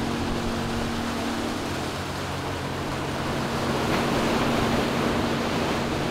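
Ocean surf washing onto a beach: a steady rush of breaking waves that swells about four seconds in.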